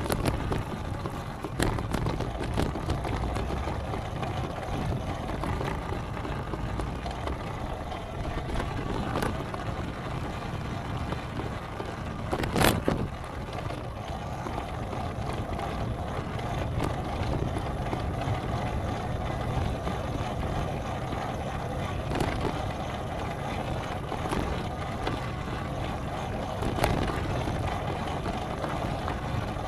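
Steady rumbling noise of a moving vehicle, with a single sharp knock about halfway through.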